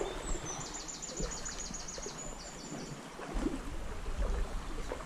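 A small songbird singing a fast run of short, high repeated notes, about seven a second for around two seconds, over the steady rush of a small stream. A low rumble on the microphone in the second half.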